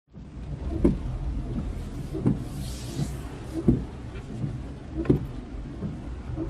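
Inside a FIAT city car, the engine runs with a low steady rumble while the windscreen wipers sweep, giving a short knock at the end of each stroke about every one and a half seconds. A brief hiss rises and falls near the middle.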